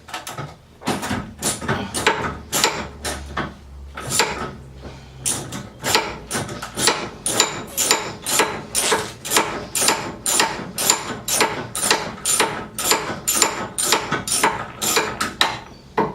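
Ratchet wrench clicking in a steady run of strokes, about two or three a second, as a sway-bar bolt is wound out.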